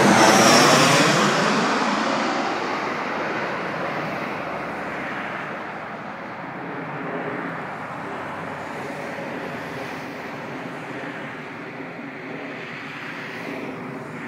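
Jet noise of an Airbus A320-216 on landing approach, its CFM56 turbofans. It is loudest at the very start with a falling whoosh, then dies down to a steady drone as the aircraft descends away toward the runway.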